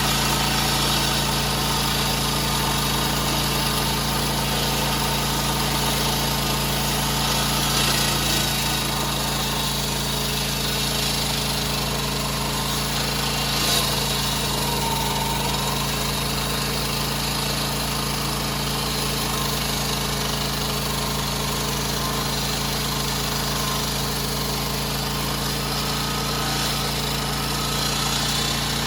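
A 16-inch electric concrete saw runs steadily while a generator powers it. The generator's engine hums underneath, with an even high grinding hiss on top.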